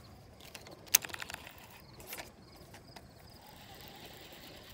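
Fishing reel clicking as it is worked: a sharp click about a second in, then a quick run of clicks, then a fainter tick.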